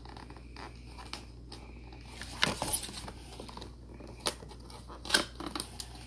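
A boxed wax warmer being unpacked by hand: scattered sharp clicks and crinkling packaging, loudest about two and a half seconds and five seconds in.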